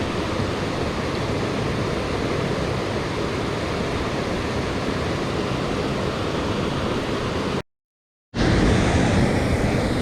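A mountain stream rushing steadily, running high after rain. Near the end the sound cuts out completely for under a second, then the rushing water comes back a little louder.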